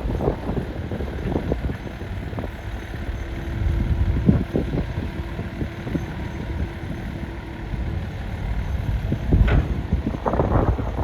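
Excavator working: the machine runs with a low rumble and scattered knocks, and a steady tone is held from about two and a half to eight seconds in.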